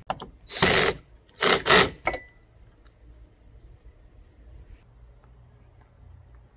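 Cordless drill driving a screw in two short runs about a second apart, with a brief third spurt just after.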